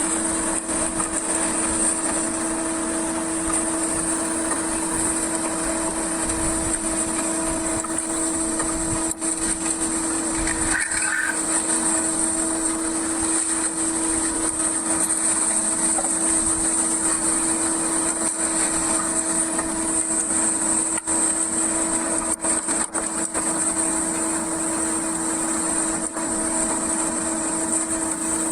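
Fishing boat's engine running at a steady speed, a constant hum over a noisy hiss with no change in pace.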